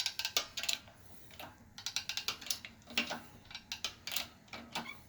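Harbor Freight 12-ton hydraulic press being worked to push a press-fit wrist pin out of a piston: irregular clusters of sharp metallic clicks and taps from the pump handle and press.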